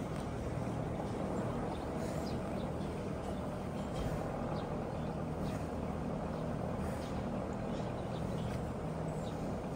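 A vehicle's engine running steadily with road noise, a low even hum under a wash of noise, and faint scattered ticks.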